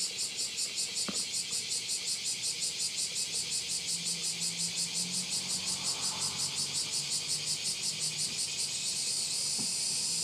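Insects singing outdoors: a high-pitched song pulsing about four to five times a second, turning into a steadier buzz near the end. Soil spilled from a plastic scoop makes a soft rustle about six seconds in.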